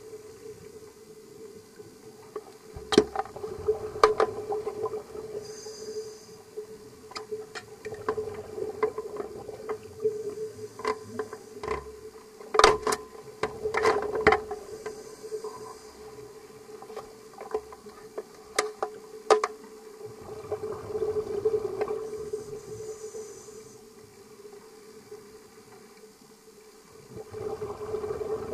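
Underwater sound heard through a camera housing: a steady hum, a scuba diver's regulator breathing and exhaust bubbles swelling up every several seconds, and scattered sharp clicks and knocks.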